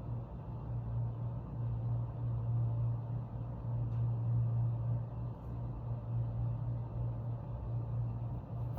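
A strange low droning hum that swells and fades unevenly without stopping.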